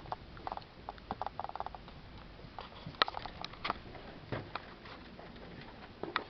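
Metal hand tools being handled, giving a string of small clinks, clicks and rattles, the sharpest about three seconds in.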